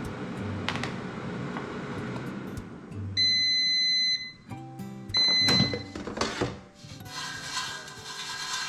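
Air fryer's timer beeping at the end of its cooking cycle: one long high-pitched beep, then a shorter one about a second later.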